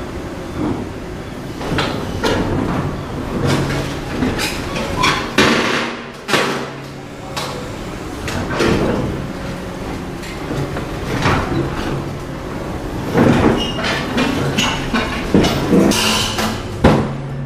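Demolition work: a hydraulic excavator's engine running with a steady hum, under irregular crashes, knocks and scrapes of concrete rubble being broken and moved.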